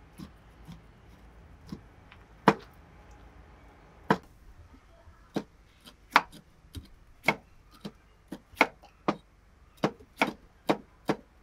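A cleaver chopping red chillies on a round wooden chopping board, with a second knife slicing bitter melon on another board: sharp knocks of blade on wood, a few spaced ones at first, then about two a second from around five seconds in.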